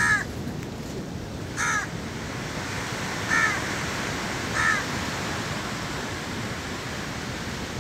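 A bird calling four times, short calls about a second and a half apart, over steady background noise.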